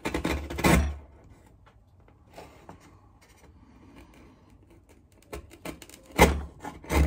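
A steel wood chisel scraping across the end of a small stick of wood on a workbench. The edge is not sharp enough to take a clean shaving. There is a loud scrape in the first second, then quiet, then two short, loud scrapes or knocks against the bench at about six and seven seconds.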